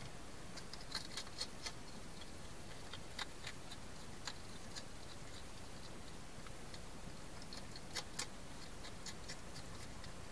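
Hedgehog eating from a food bowl: scattered sharp clicks of chewing in small clusters, over a steady hiss.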